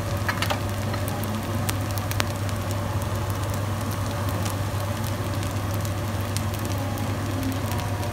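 Kimchi fried rice sizzling in a hot wok, a steady hiss with scattered crackles and pops, over a steady low hum.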